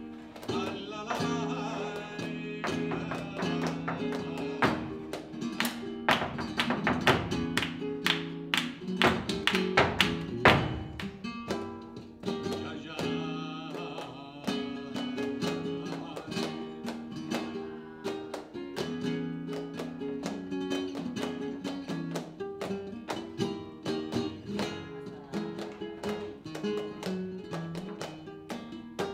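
Live flamenco soleá por bulerías: guitar playing steady chords, with palmas hand-clapping and sharp rhythmic strikes over it.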